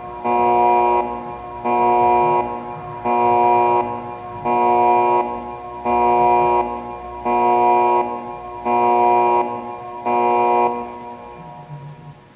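Electronic emergency alert tone for an earthquake warning: an organ-like chord of steady pitches sounding in about eight pulses, each roughly a second long with short gaps between, fading out near the end.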